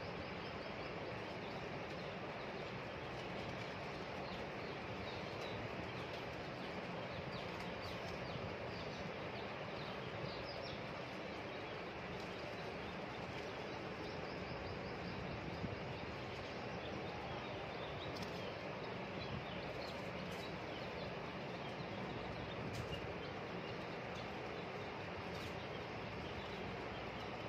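Faint, high chirping of small birds over a steady background hiss, with a few faint clicks.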